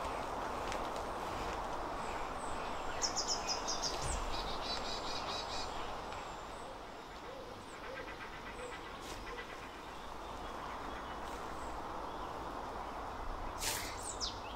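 Woodland ambience: a steady background hiss with songbirds calling over it. There is a quick run of about six high notes about three seconds in, a repeated call just after, and a fainter trill around eight seconds. A brief rustle comes near the end.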